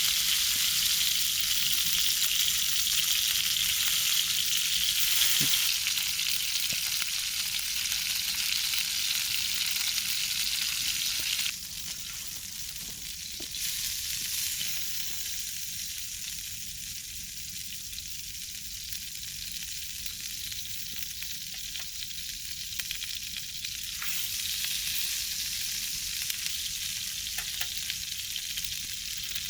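Food sizzling as it fries in a pan: a steady high hiss with a few light clicks. The hiss drops suddenly about eleven seconds in and grows louder again near the end.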